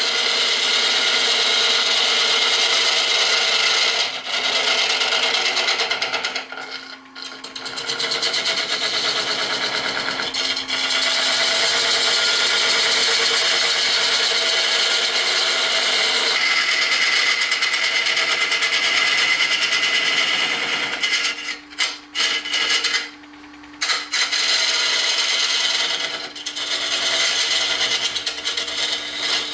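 A turning gouge cutting a spinning resin-and-burl hybrid blank on a wood lathe, making a steady hissing, scraping cut. The cut stops briefly about seven seconds in and several times between about 21 and 24 seconds.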